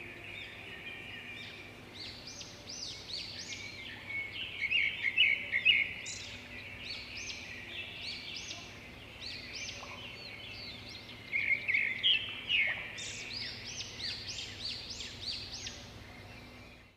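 Many birds chirping in a dense, overlapping chorus of quick, high chirps, with louder flurries about a third of the way in and again about three quarters through.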